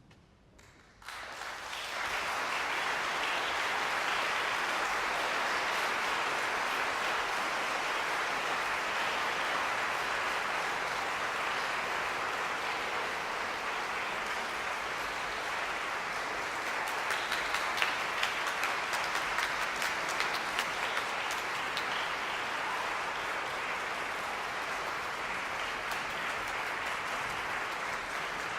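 Audience applauding, starting about a second in and swelling at once into steady clapping, with a few louder, sharper claps a little past halfway.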